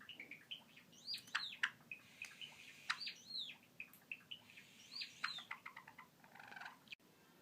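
Male Java sparrow singing its song: quick runs of short clicking notes mixed with higher, falling whistled notes, in phrases repeated every couple of seconds.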